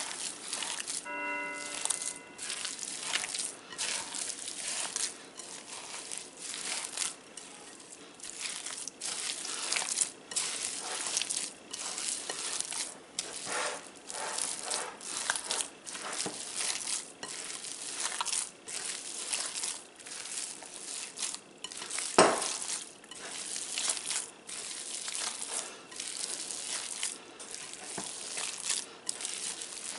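Hands squeezing and kneading raw ground bison and sausage meatloaf mix in a glass bowl, in quick repeated strokes, with one sharp knock about two-thirds of the way through.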